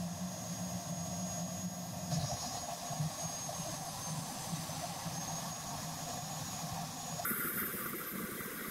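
Delta 36-6022 jobsite table saw running with its blade cutting through wood during test cuts. A steady motor whine whose character shifts about two seconds in and again near the end.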